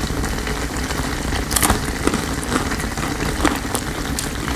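A can of rice porridge bubbling as it boils on a dry-fuel tablet burner: a steady low bubbling rumble with light crackle, and a few faint clicks.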